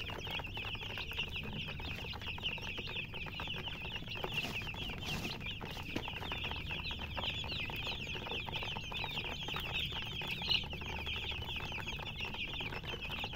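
Many chicks peeping together: a steady, dense chorus of short, high, falling chirps with no break.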